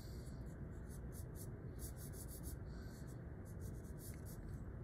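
Pencil drawing on paper: a run of short, irregular scratching strokes as letters are sketched, faint.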